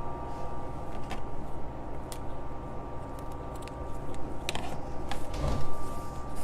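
Sewing machine running, straight-stitching back and forth across webbing to fix a buckle in place: a steady mechanical hum with scattered clicks and a few heavier knocks near the end.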